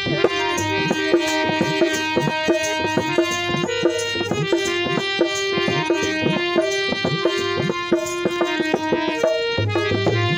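Harmonium holding sustained reed chords while a dholak plays a steady folk rhythm: an instrumental passage of a Bhojpuri jhareliya song, with no singing.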